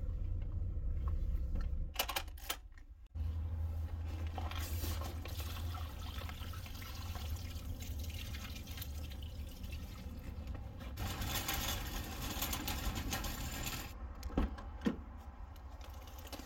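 Water splashing onto wet pavement beside an open car door, over the car's steady low hum. Two short knocks come near the end.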